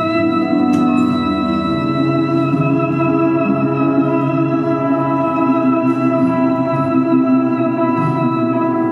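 Free-improvised trio music: a long, steady held note with many overtones, from voice and electronics, sits over low piano and double bass.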